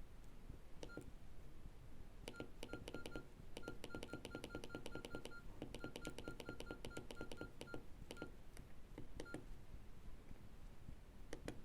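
Nokia E65 keypad being pressed in quick runs of several presses a second, each press a short click, most with a brief beep key tone, as the phone's menus are scrolled.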